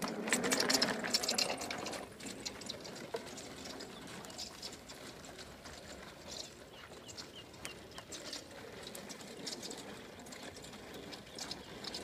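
Rotary lawnmowers being pushed by hand at a run over dry, dormant grass, their engines not running: a rattling, crunching clatter of wheels, decks and footsteps. It is loudest in the first two seconds, then stays lower and steady.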